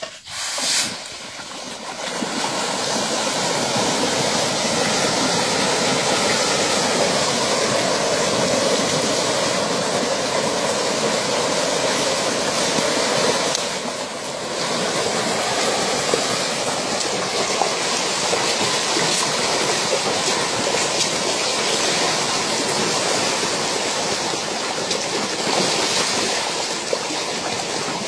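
A dense shoal of carp thrashing at the surface of a pond in a feeding frenzy: a steady rush of churning, splashing water. It starts about a second in, when a bucketful of fish feed lands in the water.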